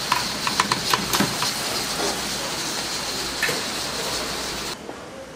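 Steady kitchen hiss from a gas broiler, with several light metal clinks in the first second and a half as a wire fish-grilling basket is handled. The hiss cuts off suddenly near the end.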